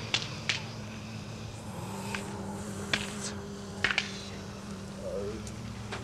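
Scattered sharp clicks and pops, irregular and brief, over a steady low electrical hum.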